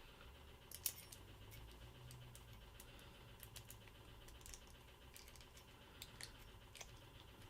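Faint, scattered light clicks and taps of small hard parts being handled as a spigot is fitted to a water filter container, with one sharper click about a second in.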